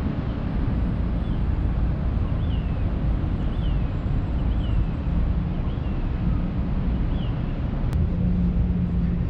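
Steady low outdoor rumble, with short falling chirps about once a second and a single click followed by a brief steady hum near the end.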